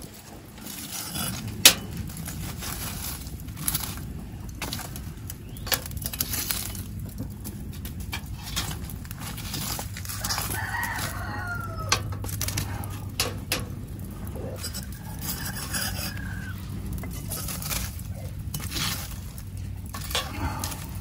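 Hot charcoal coals being raked and scraped out from under a fire-pit grate with a metal fire tool, giving scattered sharp clinks and scrapes, the sharpest about two seconds in. A rooster crows about halfway through.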